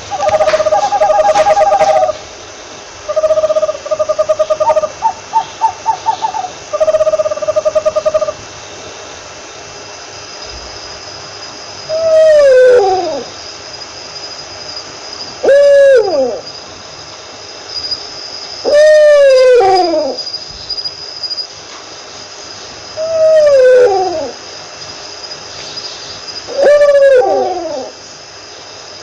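Owl calls. First comes a run of quick, even-pitched hoots. Then five separate calls, each falling in pitch, about three to four seconds apart.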